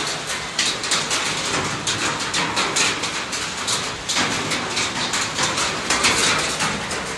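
Hail pelting onto paving stones and the ground, a dense, uneven clatter of countless small hits.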